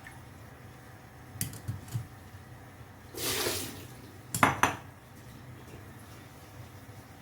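Kitchen cookware and utensils clattering: three light knocks about a second and a half in, a short rush of water about three seconds in, then a louder clatter of pots and utensils.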